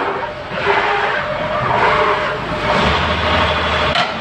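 Toyota forklift engine running under load as the forklift climbs steel ramps onto a flatbed truck, with a steady low hum deepening for about a second near the end.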